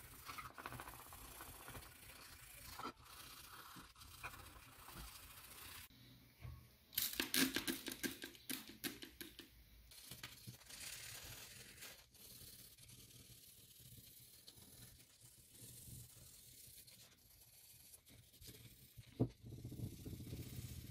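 Sandpaper rubbed by hand over the primed metal frame of an antique grinder, in uneven rasping strokes, with a louder spell of quick strokes about a third of the way in.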